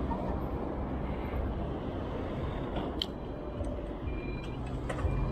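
Steady city road traffic and riding noise heard from a moving bicycle, mostly low rumble, with a sharp click about three seconds in.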